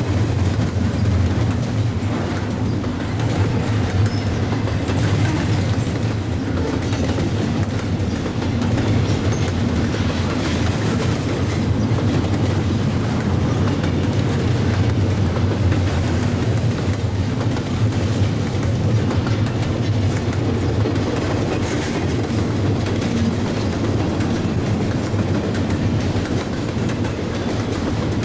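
Double-stack intermodal well cars loaded with containers rolling past, a steady rumble with wheels clicking over the joints of jointed rail.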